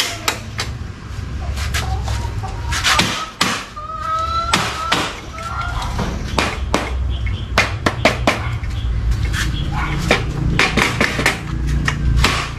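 Irregular series of sharp knocks from a block of wood struck against an aluminium sliding-window frame while the glass is fitted into the panel. A chicken calls about four seconds in, over a steady low hum.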